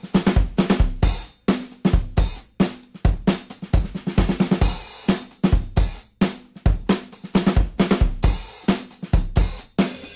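Background music led by a drum kit playing a steady, busy beat of kick drum, snare and cymbals.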